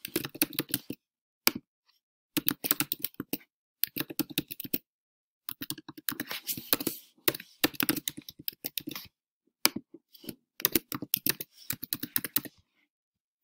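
Typing on a computer keyboard: quick runs of keystrokes with short pauses between them as text is entered into form fields, stopping shortly before the end.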